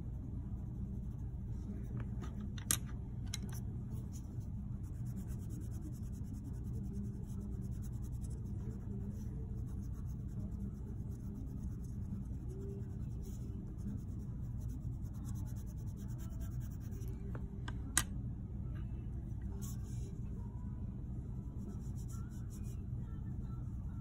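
Colored pencils scratching and rubbing on paper in short, on-and-off shading strokes, over a steady low hum. Two sharp clicks, one about three seconds in and one about eighteen seconds in.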